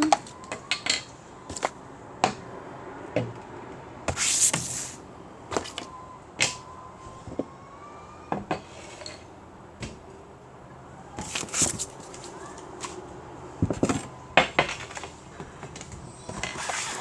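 Small objects and plastic containers being handled: scattered clicks, taps and knocks, with a few short rustling bursts.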